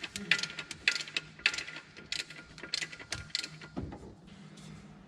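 Ratchet wrench clicking as it turns the alternator's belt-tension adjusting bolt, in strokes about twice a second that stop about three and a half seconds in, tightening the alternator drive belt.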